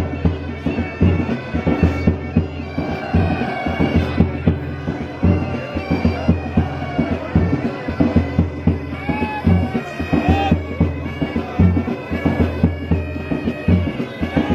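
Pipe band playing: bagpipes with a steady drone under the melody, and a drum beating along.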